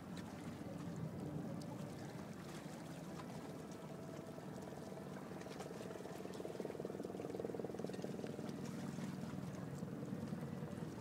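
Water lapping and splashing against a small boat's hull, over a steady low rumble of the boat's motor.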